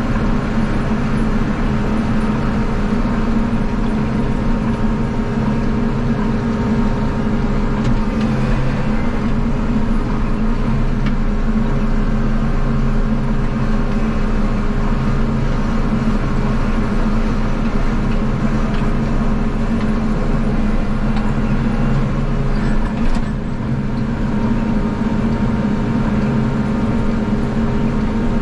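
Engine of a snow-blowing machine running steadily at a constant speed while clearing snow, with a brief dip in level about three-quarters of the way through.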